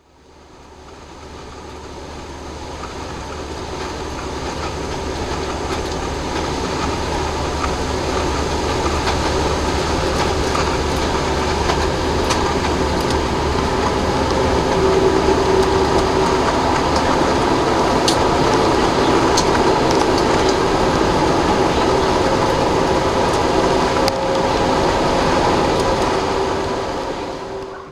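Steady engine and road noise of a vehicle travelling along a highway, heard from inside it. The noise fades in over the first few seconds and fades out at the very end.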